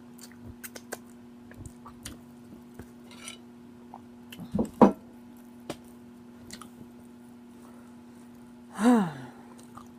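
Close-up eating sounds: soft chewing and lip-smacking clicks over a steady low hum. There is a short loud mouth sound about halfway through, and near the end a louder throat sound that falls in pitch.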